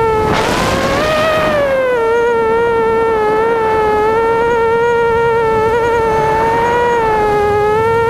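Motors and propellers of an ImmersionRC Vortex FPV racing quadcopter: a steady, high-pitched buzzing whine whose pitch dips and rises slightly. Near the start a burst of rushing air noise comes in as the pitch briefly climbs, then fades after about a second.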